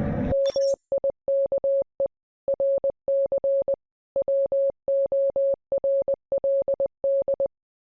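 A single steady electronic beep, keyed on and off in short and long pulses in uneven groups like Morse code, for about seven seconds before stopping. A brief hiss comes with the first pulse.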